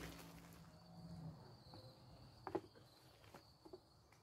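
Near silence: a faint, steady, high-pitched insect trill, typical of crickets, with a few faint short clicks a little past halfway.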